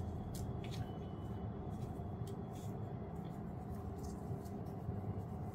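Faint rustling and a few light clicks of a camera strap being pulled and adjusted by hand, over a steady low hum.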